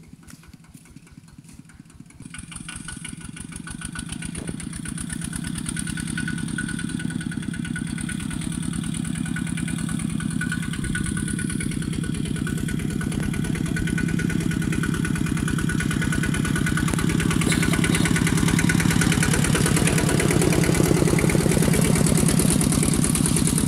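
Kubota walk-behind two-wheel tractor's single-cylinder diesel engine chugging steadily under plough load, faint at first and growing louder over the first two-thirds as it comes closer, then holding loud.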